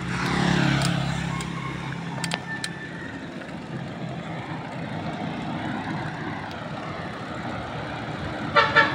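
A vehicle's engine speeding up as it pulls away, then steady wind and road noise while riding along. Two short, loud tones sound just before the end.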